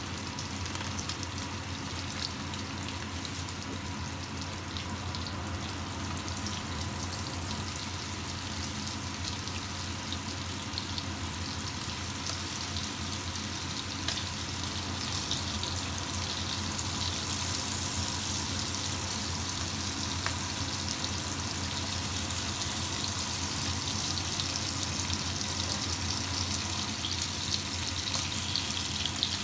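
Chicken pieces sizzling in oil in a nonstick frying pan as wooden chopsticks turn them: a steady hiss with scattered crackles. The sizzle grows louder and brighter from about halfway through.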